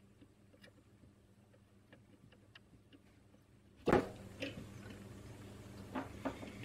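Faint light ticks and clicks of hand soldering work on a small circuit board, then about four seconds in a sharp knock, followed by a few clicks and taps as the board is handled in its clamping holder.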